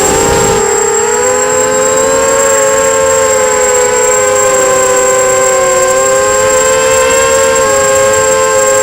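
250-size FPV quadcopter's brushless motors whining steadily in flight. Several close pitches waver slightly up and down as the throttle changes, with a thin steady high whistle above them.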